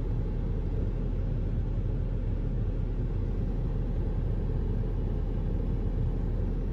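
Steady low rumble of a pickup truck on the move, heard from inside the cab: engine and road noise.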